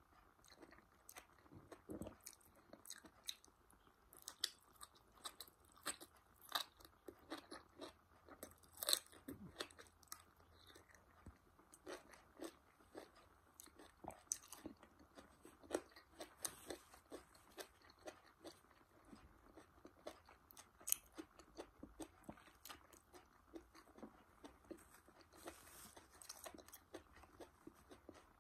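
Close-miked eating sounds of a person biting and chewing curry-coated asparagus spears: sharp, irregular crunches and wet chewing clicks. The loudest crunches come about nine seconds in and again about twenty-one seconds in.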